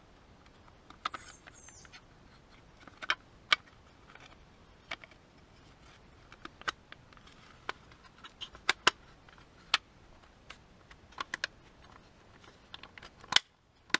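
Irregular sharp clicks and taps of the small parts of a car door lock unit being handled and fitted together by hand during reassembly, about two dozen over the stretch, with a brief faint high squeak about a second in.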